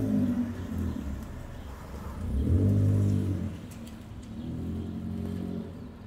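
A car engine going by, its steady engine note swelling about two and a half seconds in, then easing off and dropping away near the end.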